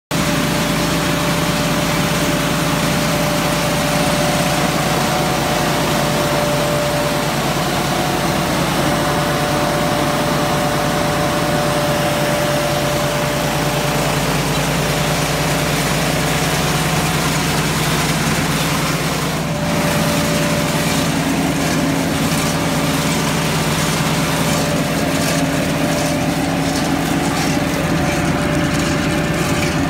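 Hasatsan H230 self-propelled hazelnut harvester running: a constant machine hum with a steady high whine over it, briefly dipping about two-thirds of the way through.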